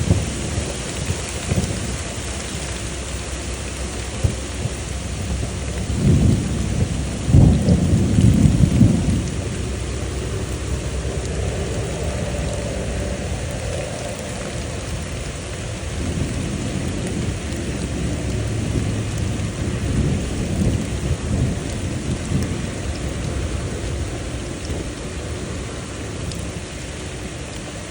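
Thunderstorm: steady rain falling, with rolling thunder rumbling loudest about six to nine seconds in and a softer rumble later on.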